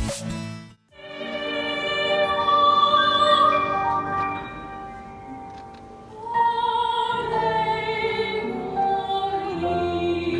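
A woman singing in an operatic, classical style with grand piano accompaniment, in long held notes. The singing starts about a second in, and a new phrase begins about six seconds in.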